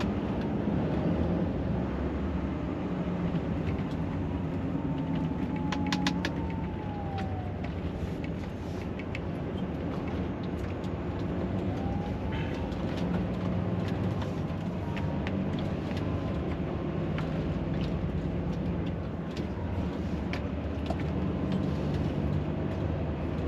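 Lorry's diesel engine and road noise heard from inside the cab while driving, the engine note shifting a few times. A faint whine falls and rises, and a few sharp clicks come about five to six seconds in.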